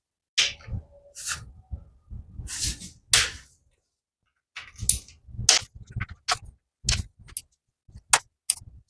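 Hand tool with a T40 Torx bit working the transmission oil pan bolts: a string of irregular sharp clicks and short metallic scrapes with pauses between them.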